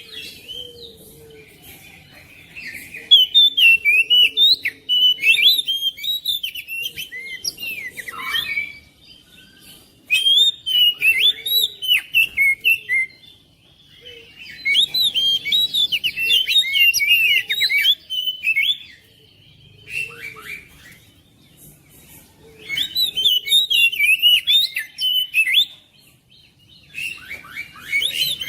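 Oriental magpie-robin (kacer) singing in bouts of several seconds. Each bout is a rapid string of varied chirps and whistles, with short pauses between the bouts.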